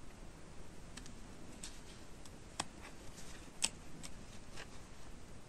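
Faint handling sounds of crocheting: a few scattered small clicks and rustles as a metal crochet hook is worked through yarn stitches, the sharpest click a little past halfway.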